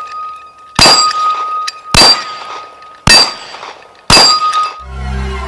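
Rifle shots striking a steel gong target, four hits about a second apart, each leaving the steel ringing with a clear metallic tone.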